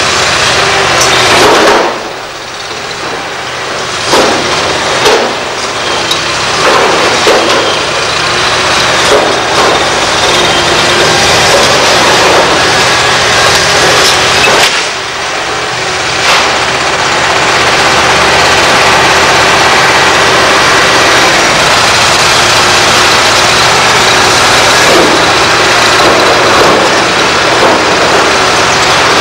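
Liebherr R964 demolition excavator's diesel engine and hydraulics running hard, with repeated crashing and clattering of brick and rubble as the grab tears down a wall. The crashes are thick in the first half and thin out after about seventeen seconds, leaving a steady machine sound.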